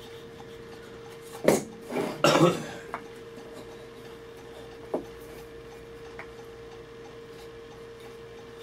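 Wooden marking gauge set against a wooden stool leg and drawn along it: a sharp knock about one and a half seconds in, then a short scrape as its pins score a line, with a few faint taps afterwards.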